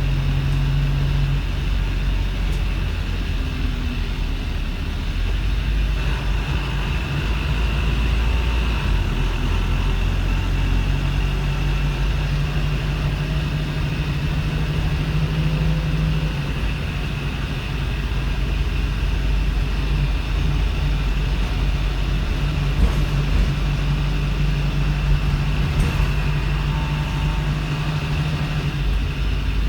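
Wrightbus StreetLite bus's Daimler OM934 four-cylinder diesel idling roughly: a low, steady-pitched drone whose throbbing tone drops out and returns unevenly every few seconds, with a constant high whine over it.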